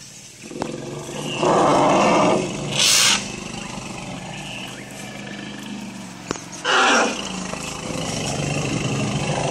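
African elephants calling in 'mating pandemonium', the family's excited chorus around a mating pair: a loud roar about a second and a half in, a short shrill trumpet-like blast near three seconds, and another loud call near seven seconds, over a low rumbling.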